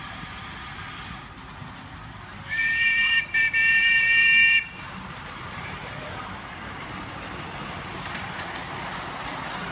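The steam whistle of a 7¼-inch gauge Tich miniature steam locomotive, blown twice: a short blast, then a longer one of about a second, both on a steady multi-note pitch. Afterwards a steady rushing noise grows gradually louder.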